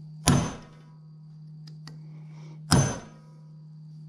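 Two sharp hammer blows on metal about two and a half seconds apart, each ringing briefly, with a steady low hum underneath.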